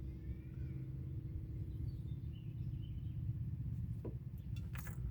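Steady low background hum with a few faint chirps over it, and a light click about four seconds in and another near the end.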